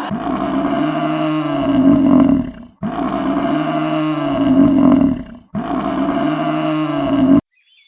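A large animal's deep call, heard three times in a row. Each call lasts about two and a half seconds, rises then falls in pitch, and cuts off abruptly.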